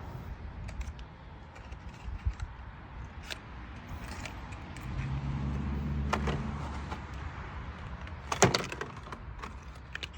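Scattered metal clicks and clinks of hand tools and a spark plug being handled, with a quick cluster of louder clinks near the end. A low hum swells for about two seconds in the middle.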